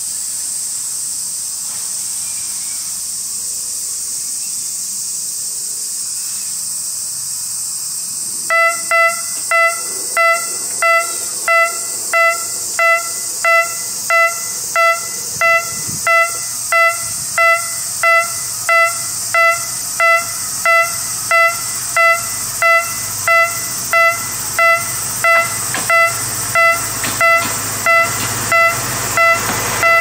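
Railway level-crossing warning signal starting about eight seconds in and dinging steadily, about one and a half strikes a second, over a steady high hiss. Right at the end the approaching diesel locomotive grows louder.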